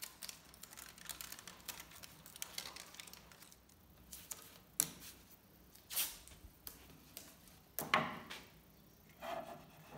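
Crackly rasps of blue masking tape being pulled off its roll and pressed along the edge of a walnut slab, then several sharp clicks and knocks. The loudest knock comes near the end, as a spirit level is set down on the slab.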